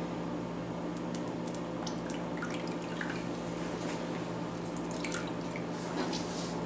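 Orange halves squeezed by hand over a plastic bowl: juice dripping and spattering in small, irregular drips and squishes. A steady low hum runs underneath.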